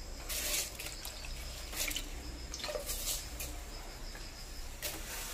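Washed rice and water poured into a pressure cooker of spiced cooking water, splashing and trickling in several short bursts.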